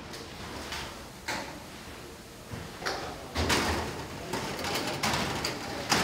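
Irregular scraping and knocking of hand tools working wet concrete during a pour, with several stronger scrapes in the second half.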